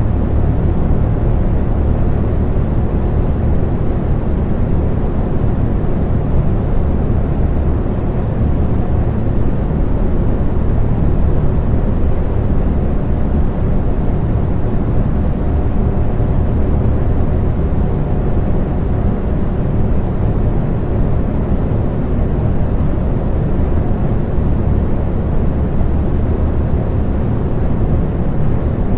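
Electric fan running steadily: an even, low rush of air, strongest in the deep bass, with a faint steady hum of motor tones over it.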